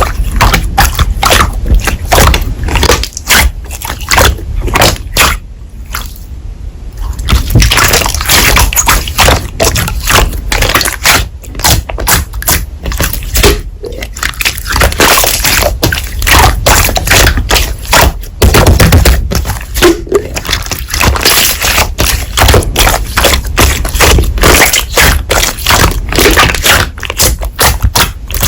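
Slime being squished, pressed and pulled by hand, giving dense sticky clicks, pops and crackles, with a brief quieter stretch about six seconds in.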